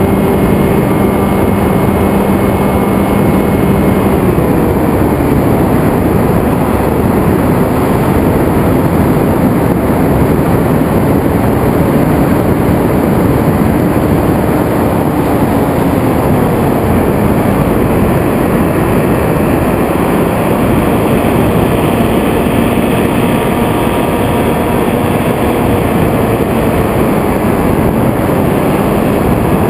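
Onboard sound of a Zephyr FPV flying wing in flight: loud rushing wind over the onboard camera's microphone, with the hum of the electric motor and propeller. The motor's pitch drops about four seconds in, then slides up and down with the throttle.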